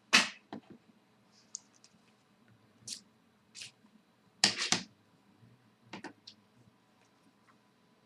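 Sparse clicks and short rustles, about a dozen in all, with the loudest cluster about four and a half seconds in: small objects being handled.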